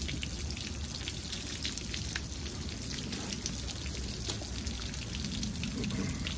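Water from a garden hose running over a dog during a bath and trickling and dripping off the edges of a wet table onto the ground: a steady pouring with many small drips and splashes.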